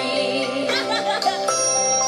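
Children's nursery-rhyme song music with bell-like chiming notes over the melody.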